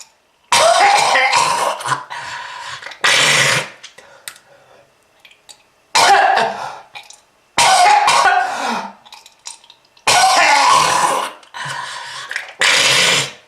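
A person coughing in about six harsh, loud fits with throat clearing between them, presented as a smoker's cough.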